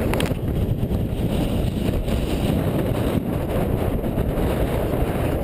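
Wind buffeting an action camera's microphone as the runner carrying it runs into a strong headwind: a steady, loud low rumble.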